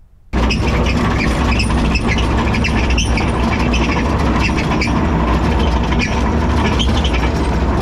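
Yanmar ViO55 mini excavator travelling on its tracks, heard from the operator's seat: the diesel engine runs steadily with faint knocks about once a second and a repeated high squeak. The squeak comes from the front idler assembly, which is worn out after about 4,100 hours.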